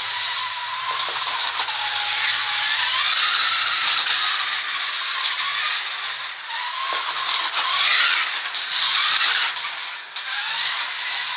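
Electric Tamiya RC car running. The motor's whine rises and falls with the throttle over a steady rattling, scraping hiss.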